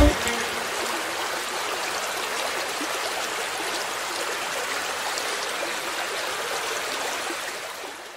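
Running water, a stream or small cascade, rushing steadily and then fading out near the end.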